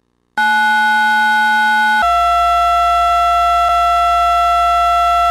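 Loud, steady, buzzy electronic emergency-alert tone, several fixed pitches sounding together, marking the end of the alert broadcast. About two seconds in it steps down to a slightly lower pitch with a low hum underneath, then cuts off abruptly.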